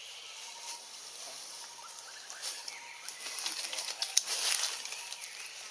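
Outdoor tree-canopy ambience: a run of rustling and crackling, loudest between about three and five seconds in, over a steady high hiss, with a few faint short chirps.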